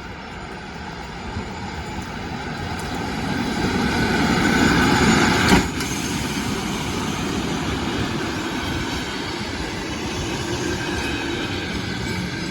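EP1 electric locomotive with a work train passing by. The rumble of wheels on rails builds to its loudest about five and a half seconds in, with a brief sharp crack as it passes closest, then the cars roll on past with a steady rumble.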